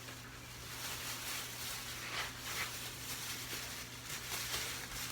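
Pork chops and onions frying in grease in a pan, a steady sizzle with faint crackles. A steady low hum runs underneath.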